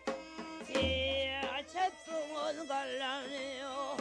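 Korean shamanic ritual music of the Jindo ssitgim-gut: a melodic line with wide, wavering vibrato over drum strokes, with a deep, booming stroke just before a second in.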